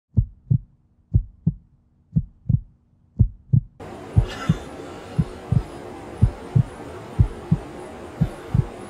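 Heartbeat sound effect: slow, evenly paced double thumps, about one beat a second. About four seconds in, a steady hiss of background noise comes in beneath it.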